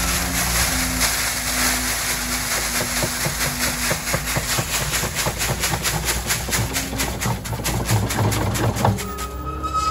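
Gravel pouring from a tracked skid steer's bucket as it backfills a septic tank pit: a steady rush of stones clattering down over an engine running underneath. The pour eases off about nine seconds in.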